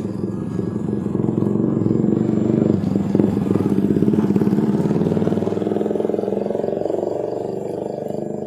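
A motor vehicle's engine running close by, loudest around three seconds in and then slowly fading.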